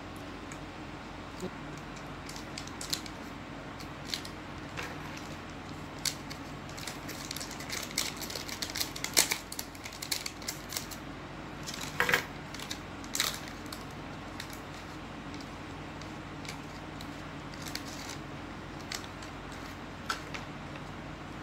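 Plastic wrapper of a packaged Dan Cake chocolate muffin crinkling and tearing as it is opened by hand: a run of sharp crackles, thickest and loudest in the middle, then tailing off. A steady low hum runs underneath.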